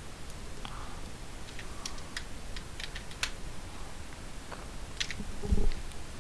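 Computer keyboard being typed on: scattered, irregular key clicks. A short low thump comes near the end and is the loudest sound.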